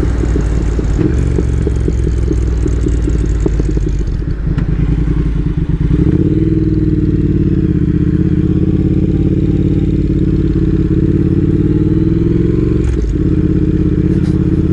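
Triumph Speed Twin's parallel-twin engine running under way on the road. It holds a steady pull through the middle that rises slowly in pitch, with a short drop in the engine note near the end.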